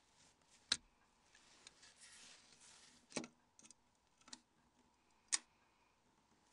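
A few quiet, sharp clicks and taps of a Nokia N81 phone's small parts being handled as its engine module is pushed out. The sharpest come about a second in and again near the end.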